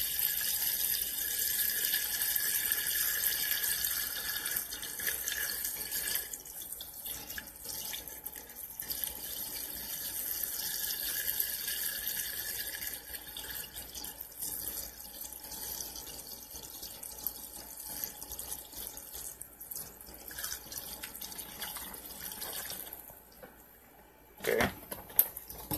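Hawaiian Punch pouring in a steady stream from a gallon plastic jug into a drink cooler full of sliced oranges and strawberries, splashing into the liquid. The splashing is loudest over the first few seconds, then eases and stops near the end, followed by a couple of knocks.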